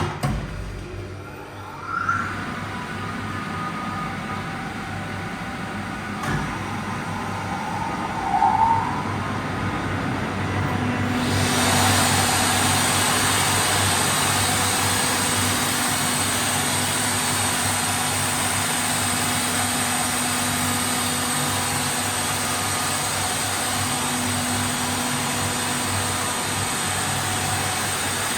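Kaeser ASD 32 T rotary screw compressor starting up and running with a steady hum. About eleven seconds in, a broad hiss comes in and it gets louder, then runs on steadily.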